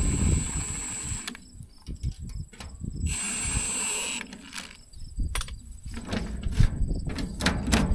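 A power drill running in two bursts, about two seconds and then about a second long, each with a high motor whine, followed by a string of sharp clicks and knocks of metal parts being handled.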